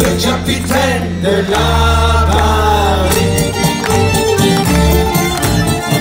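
Live acoustic folk band playing an instrumental passage: accordion and a plucked string instrument, with a wavering melody line over long held low notes.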